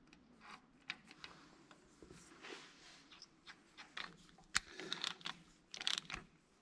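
Faint scattered clicks and small metallic ticks as a new spark plug is threaded by hand into the tractor engine and then run in with a ratchet and spark plug socket. The clicks come quicker and louder in the second half.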